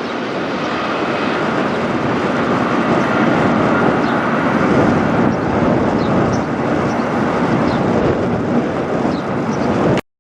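Jet engine noise from an Airbus A321-211 airliner (CFM56-5B turbofans) flying over: a loud, steady rumble that swells a little toward the middle, then cuts off suddenly near the end.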